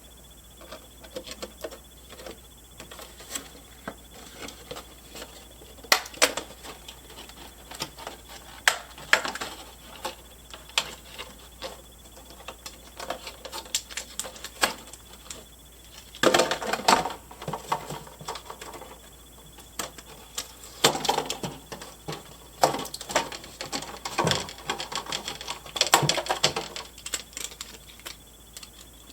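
Small plastic toy accessories being freed from their packaging by hand: scattered clicks and taps with crinkling and rustling of plastic and cardboard, busier about halfway through and again later on.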